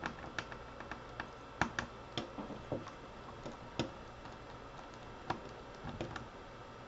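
Small Phillips screwdriver working screws out of a laptop's plastic screen bezel: light, irregular clicks and ticks of the bit and the handling, a loose cluster with no steady rhythm.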